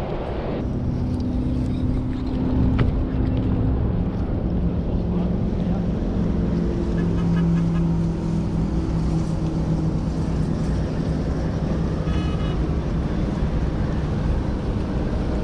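Outboard motorboat engine droning steadily, its pitch shifting a little, over a low rumble of wind and water.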